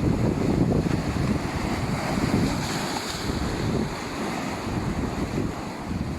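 Stormy sea waves surging and washing over a rocky shore, with wind buffeting the microphone. One wash hisses brightest about three seconds in.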